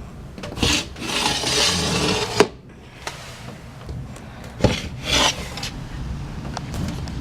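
Steamed-up window glass being wiped: a few rubbing strokes, the longest about a second and a half, with a couple of light knocks against the pane.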